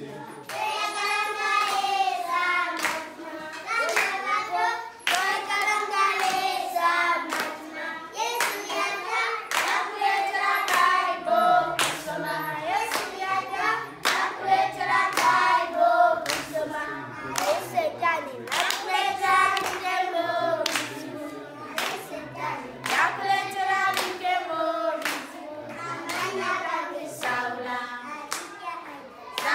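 A group of young children singing a song together while clapping their hands in time to a steady beat.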